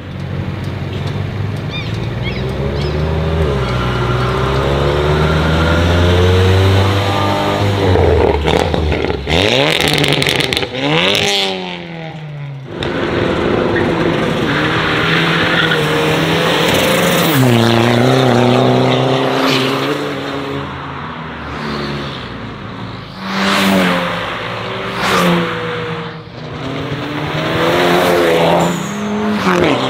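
Modified cars accelerating hard one after another, engines revving up through the gears. Each car's note climbs steeply and drops back at each shift as it pulls away or passes close by.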